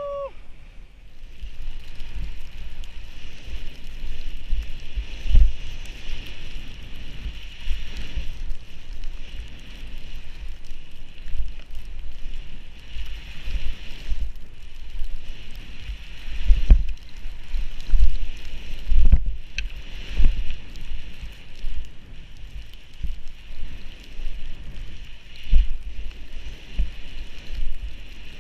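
Skis running through deep powder snow, a steady hiss of snow, with gusts of wind buffeting the microphone and irregular thumps as the skier turns and hits bumps.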